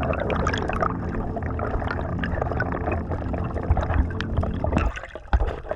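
Water splashing and gurgling, full of small crackling clicks, dipping briefly near the end.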